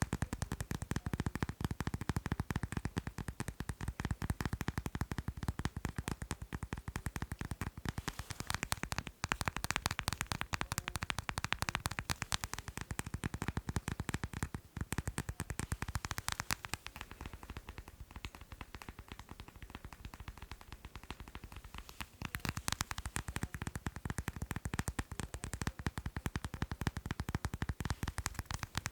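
Rapid, continuous tapping on macarons, many taps a second, softening for a few seconds past the middle before picking up again.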